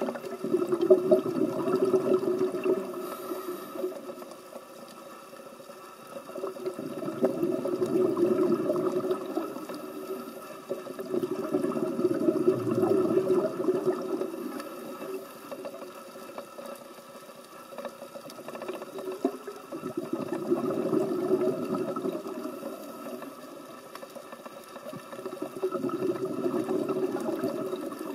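Underwater, a scuba diver's exhaled bubbles from the regulator, bubbling in five long bursts about every five to six seconds with quieter stretches between breaths.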